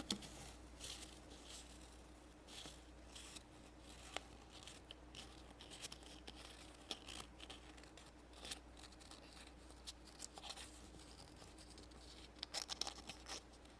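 Faint, scattered rustles and small clicks of paper and plastic packaging being handled, with a short run of louder crinkling near the end.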